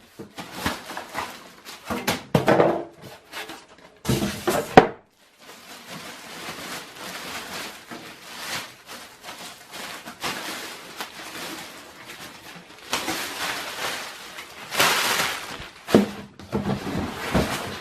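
A PC tower case being unpacked from its packing. Knocks and thunks of the case and packing being handled come in the first few seconds, then a long stretch of rustling and scraping as the packing is pulled off, loudest near the end.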